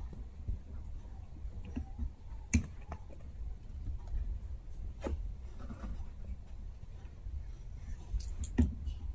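Chihuahua puppies mouthing and chewing toys on carpet: soft scuffling and chewing, with a few sharp clicks, the loudest near the end.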